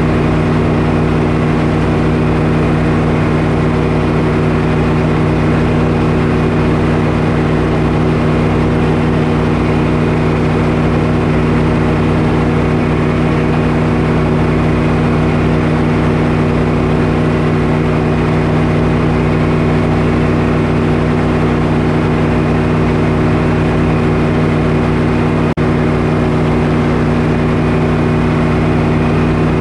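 Frick circular sawmill running free with no wood in the cut: the big blade and belt drive spin at speed over the steady drone of its power unit, holding several even tones. The sound breaks off for an instant once near the end.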